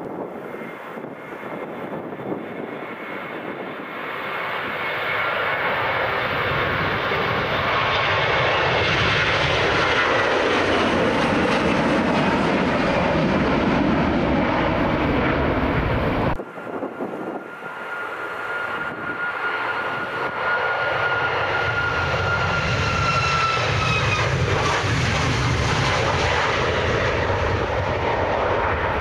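Two jet airliners taking off, one after the other. First an Airbus A321's engines build from the take-off roll to full climb thrust. The sound cuts off abruptly about halfway, and a Boeing 737 MAX climbs out at full thrust, its engines' whine dropping in pitch as it passes overhead.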